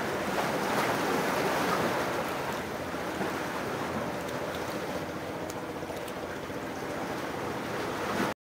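Sea surf and wind: a steady rushing noise, with a few faint clicks in the second half.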